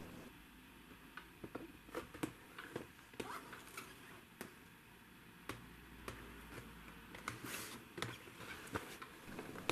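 Faint, scattered taps and rubs of hands handling and turning a cardboard toy box.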